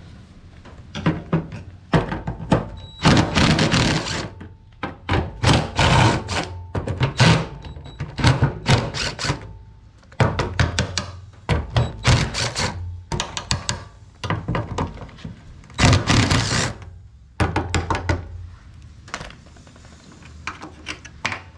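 Cordless impact driver hammering in a dozen or so short bursts as it loosens the rusty nuts holding the sending unit plate on an old steel fuel tank.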